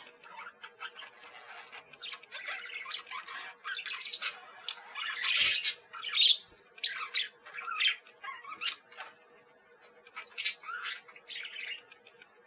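Parakeets chattering, with quick, irregular squawks and chirps that come thick and fast, loudest about halfway through.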